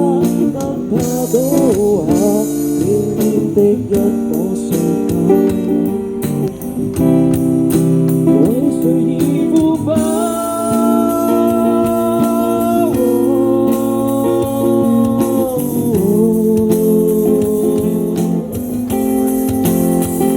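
A live band playing a song: a singer over guitar accompaniment, with long held notes in the second half.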